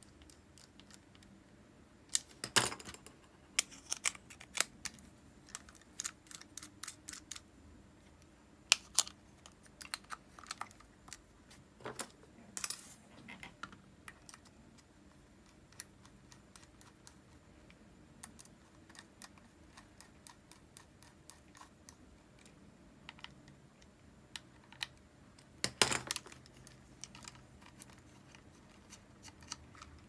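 Irregular small clicks and taps from an Abu Garcia Ambassadeur 2500C baitcasting reel being handled, coming in clusters, with louder knocks about two seconds in and again near the end.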